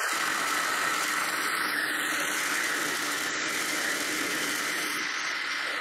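KitchenAid 3.5-cup food chopper running steadily on its chop speed, its blade chopping dried mango pieces.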